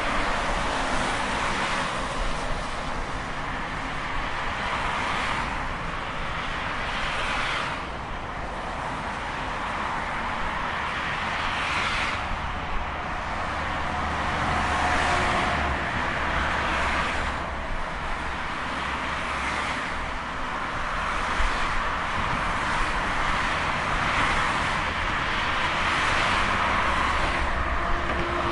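Road traffic: cars passing one after another, their tyre and engine noise swelling and fading every few seconds over a continuous hum.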